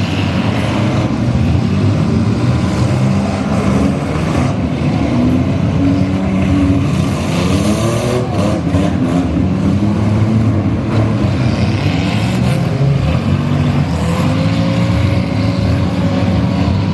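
Several minivan engines running hard and revving at once in a demolition derby heat, their pitches rising and falling. A few sharp bangs come about eight to nine seconds in.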